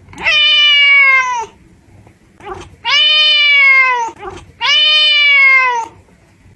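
Silver tabby cat meowing loudly: three long, drawn-out meows with short pauses between them, each dipping in pitch as it ends.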